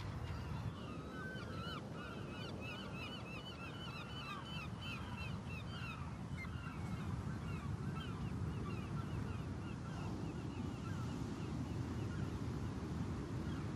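A flock of seabirds calling in many quick, overlapping cries, thickest in the first half and thinning later, over a steady low rumble.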